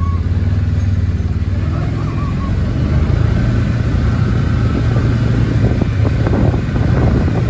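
Riding a Cyrusher Montta electric bike: a steady low rumble of wind on the microphone and tyre noise, which gets a little stronger about three seconds in as the bike picks up speed.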